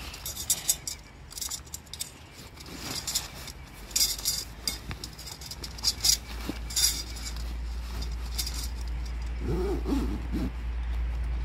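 Nylon tent fabric rustling in short bursts as a Gazelle T4 tent is pressed down into its carry bag, with light metallic clinks. A low steady rumble comes in about halfway.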